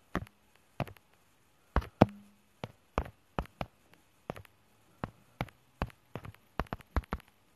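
Typing on a keyboard: about twenty sharp key taps at an uneven pace, some in quick runs.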